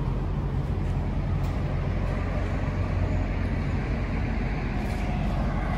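Steady low rumble of idling truck engines.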